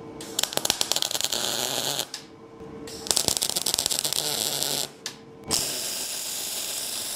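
MIG welding arc crackling and hissing on square steel tubing, in three short runs of about two seconds each with brief pauses between them.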